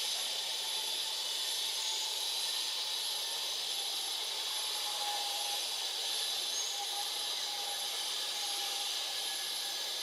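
Steady high-pitched drone of forest insects, unbroken throughout, with a couple of faint short chirps.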